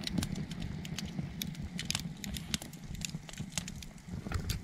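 Split firewood burning in an open fire pit, crackling and popping in irregular sharp snaps, several a second, over a steady low rumble.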